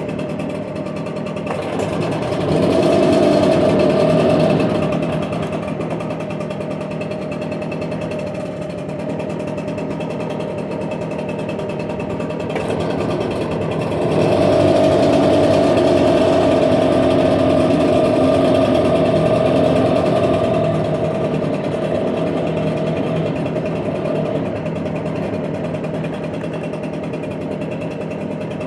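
Echo PB770H backpack blower's two-stroke engine running after a hot restart, steady at idle and rising in level twice, about two to five seconds in and again from about fourteen to twenty-one seconds in. It fired on the first pull after a half-hour heat soak, so the hot-start fault did not show.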